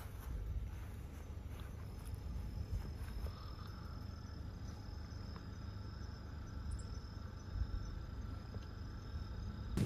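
Faint outdoor ambience with a steady, high-pitched insect trill that starts about two seconds in, over a low rumble.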